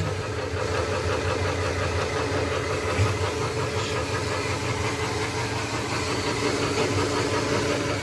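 Homemade wire stripper built from a metal roller/brake/shear machine, running steadily on its motor and belt drive while insulated copper wire is fed through its rollers, with a single knock about three seconds in.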